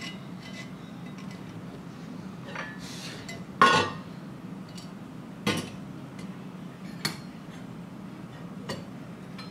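Miniature stainless steel toy pots, lids and a small kettle clinking and clattering as they are handled. A loud ringing clink comes a little over three and a half seconds in, followed by three more single clinks spaced a second or two apart.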